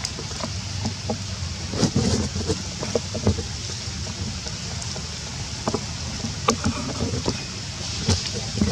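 Outdoor wind on the microphone: a steady low rumble with a faint high hiss, dotted with scattered light clicks and crackles. It grows louder near the end.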